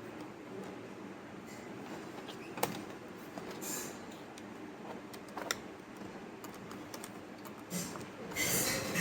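Plastic parts of a Lenovo ThinkPad W520 laptop being handled and fitted back together: a few sharp clicks and short scrapes over a faint steady hiss, with a longer, louder scrape near the end.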